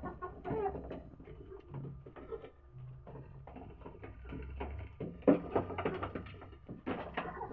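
Backyard poultry and pigeons moving about: a scatter of short, irregular taps and clicks, with the odd faint call.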